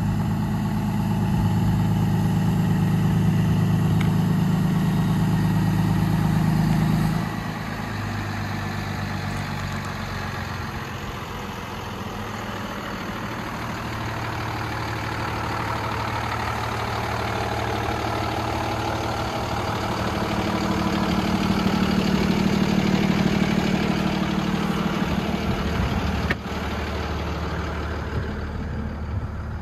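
Freightliner M2 truck's Cummins ISB diesel idling steadily, its level rising and falling, with a single sharp click near the end.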